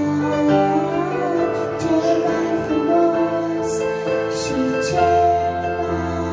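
A young girl singing a slow Christian song into a microphone, over an electronic keyboard playing held chords.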